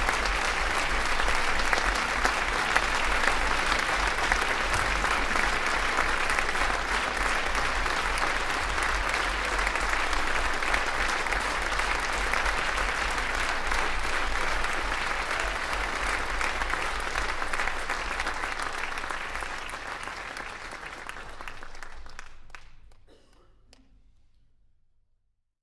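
Audience applauding, a dense steady clapping that holds for about twenty seconds, then thins out and stops near the end.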